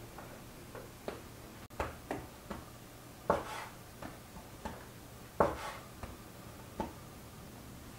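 Short, sharp knocks on a wooden board as bread dough is divided into pieces: about ten in all, with two louder ones in the middle.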